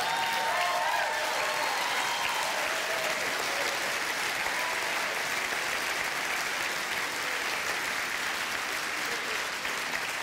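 Large audience applauding steadily, with a few voices calling out over it in the first couple of seconds.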